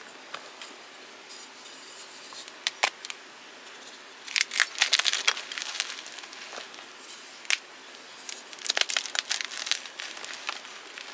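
Blocks of gym chalk being crushed, crumbling with crisp crunches and cracks. There are a few single snaps, then two longer bursts of crunching, one about four seconds in and another near nine seconds.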